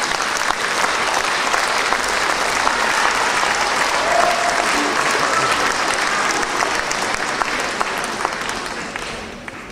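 Large audience applauding with dense, steady hand-clapping, dying away near the end.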